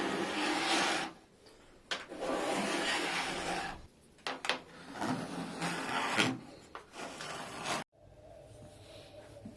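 Sanding on car body metal: rasping, rubbing strokes in bursts of a second or two with short pauses between. It cuts off suddenly near the end, leaving a faint steady background.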